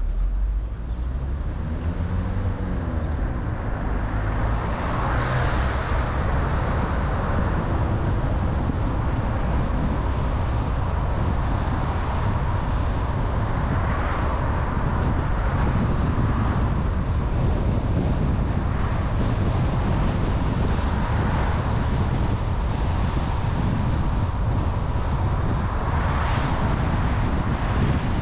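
Car driving along a road: steady engine and tyre rumble, with the road hiss swelling several times.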